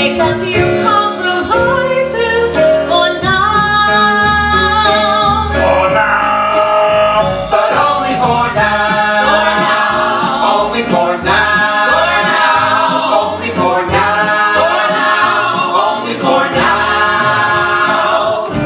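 Musical-theatre cast singing a stage musical's finale number together as an ensemble, with instrumental accompaniment.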